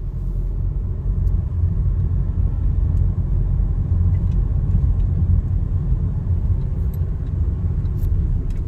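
Steady low rumble of a car driving slowly, heard from inside the cabin: engine and tyre noise with no speech.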